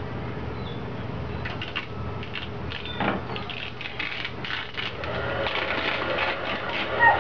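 Tinted vinyl overlay film crackling and clicking as it is handled and stretched over a car taillight, then a heat gun running with a steady whir from about five seconds in. A single sharp squeak near the end.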